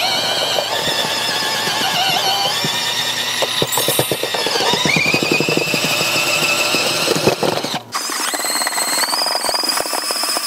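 Cordless mixer drill on first speed, its paddle churning stiff, gritty mortar under heavy load: a high motor whine that wavers and then rises about halfway through, over rapid clicking of the mix against the paddle and tub. The whine cuts out briefly near the end, then carries on at a steadier pitch.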